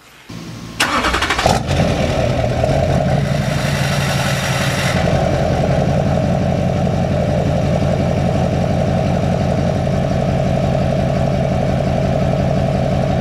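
2004 Duramax LLY 6.6-litre V8 turbodiesel starting up about a second in, heard at the 6-inch Sinister Diesel AR-15 exhaust tip, then settling into a steady idle. A hiss rides on top of the engine at first and fades out around five seconds in.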